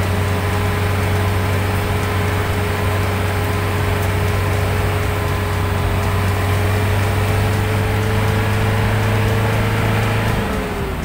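Vehicle engine running steadily while driving, with road and wind noise. Its note slowly rises, then drops near the end as the engine eases off.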